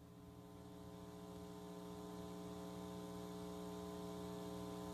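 Steady electrical mains hum in the audio feed, a stack of even tones, slowly growing louder.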